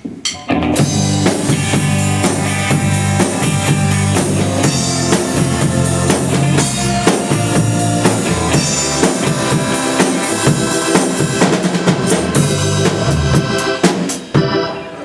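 A band playing at a sound check, the drum kit driving it with bass drum and snare hits under sustained low notes. It starts about half a second in and breaks off briefly near the end.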